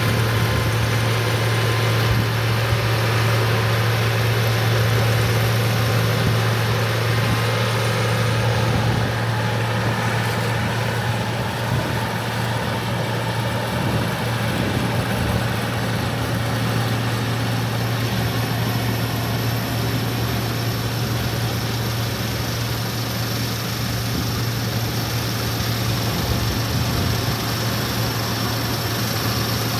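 Allis-Chalmers Gleaner F2 combine running steadily, its Allis-Chalmers 301 six-cylinder diesel giving a constant low hum under a wide, even mechanical noise.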